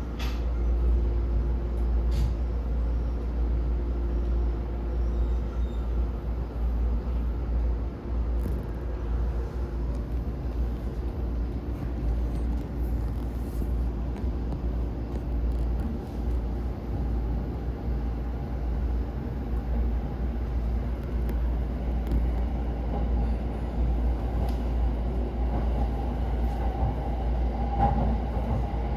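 Inside the carriage of a JR East E231 series 1000 commuter train under way: a steady low rumble of wheels on the rails and running gear, with a few faint clicks.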